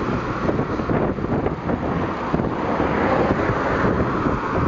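Wind rushing over the microphone of a moving bicycle, steady throughout, mixed with the noise of cars passing close alongside.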